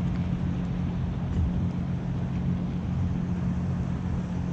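Steady low motor hum running evenly throughout, with no other clear event.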